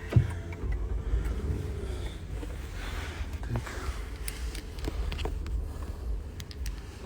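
Low, steady rumble of a car, with a few faint clicks and a short knock near the start.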